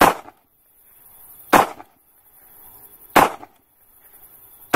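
A sharp percussive hit repeating evenly, four times about one and a half seconds apart, each dying away within a fraction of a second, over a faint steady hiss.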